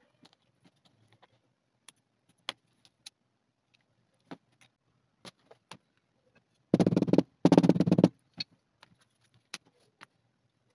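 Leather wallet panels handled and set down on a cutting mat, giving scattered light taps and clicks. About seven seconds in come two loud buzzing bursts, each about half a second long, one right after the other.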